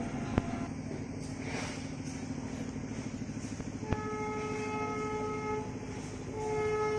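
Horn of an approaching WAP-7 electric locomotive hauling a high-speed express, sounding two long blasts, the second running on, over a low steady rumble. A sharp click comes about half a second in.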